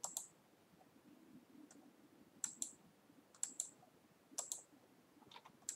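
Computer mouse clicking: sharp clicks that come in quick pairs, one pair at the start, then four more about a second apart from about two and a half seconds in.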